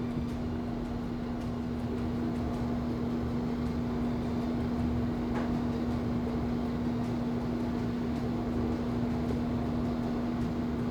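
Steady background hum, one held low tone over an even whirring noise, like a running fan or air conditioner.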